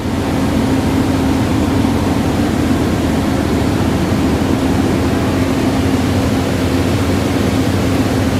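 Mobile flash butt rail welding machine running: a loud, steady mechanical noise with a constant low hum.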